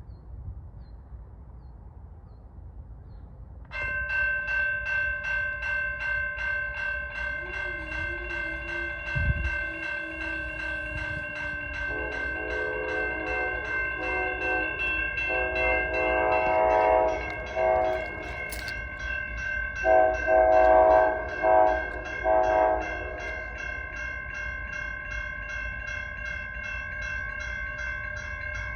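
Grade-crossing warning bell starts ringing about four seconds in with a fast, even clang. Soon after, the horn of an approaching Norfolk Southern GE AC44C6M freight locomotive sounds a series of long and short blasts, the loudest near the middle.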